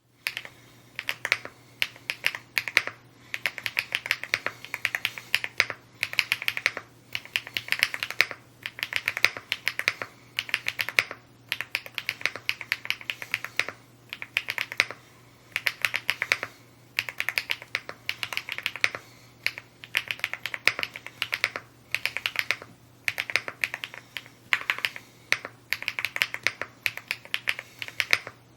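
Fast typing on a Rainy75 mechanical keyboard with an aluminium case: rapid runs of crisp keystroke clicks and clacks, in bursts of a second or two separated by brief pauses between words and phrases.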